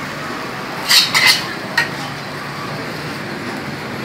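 Three quick metallic clinks of a cooking utensil against cookware about a second in, over a steady background hiss of the street food stall.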